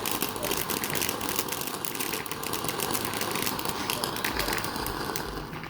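Consumer firework crackling: a rapid, dense run of small pops that dies away near the end.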